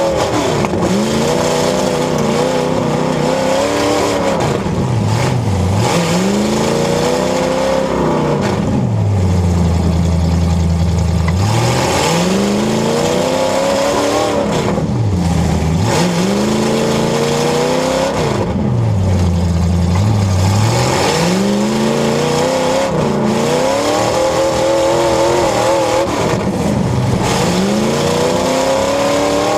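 Demolition derby car engines revving hard and falling back again and again, with a couple of longer low stretches between revs, over a loud, noisy din.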